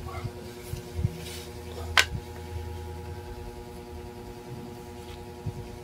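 Parts of a dismantled Honda Wave 100 motorcycle engine being handled: a few light knocks, with one sharp knock about two seconds in, over a steady background hum.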